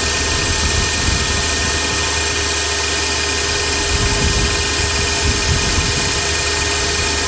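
Meec Tools 2000 W table saw with a 250 mm blade running steadily, a loud, even machine noise with a constant whine.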